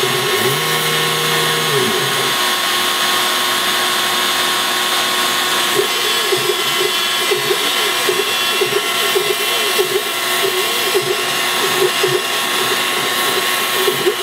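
Small CNC router cutting particle board: the spindle motor runs with a steady whine and cutting noise. Over it, the axis drive motors give short whining tones that rise, hold and fall in pitch as the machine moves.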